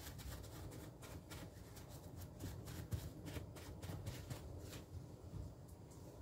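Faint rustling and soft pats of a paper towel dabbing excess oil off the top of a ball of oiled dough, in a string of irregular strokes.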